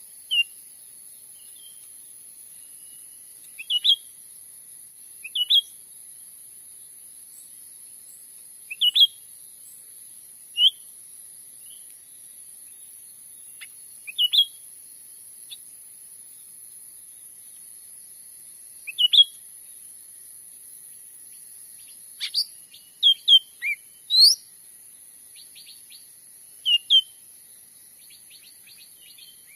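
Cucak ranting bird calling: short, sharp high chirps, often in quick pairs, repeated every few seconds, with a busier run of calls about three-quarters of the way through. A steady high hiss runs underneath.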